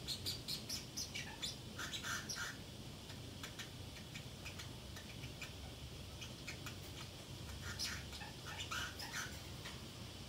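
Pacific parrotlet chattering to itself: quick soft chirps and clicks, in a bout at the start and another about eight seconds in.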